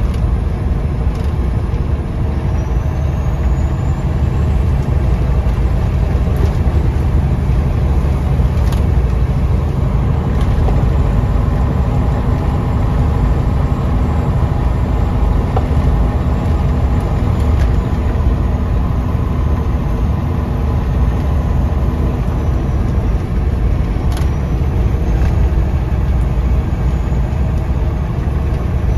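Diesel engine of a loaded semi truck running steadily, heard from inside the cab as a low drone with road noise, plus a few faint clicks.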